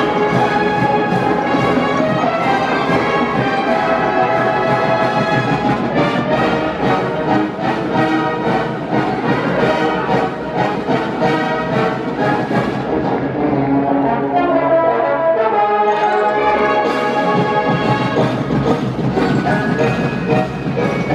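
High school wind band playing, brass to the fore over a steady percussion beat. A little past the middle the high parts drop out for a softer, lower passage, and the full band comes back in a few seconds later.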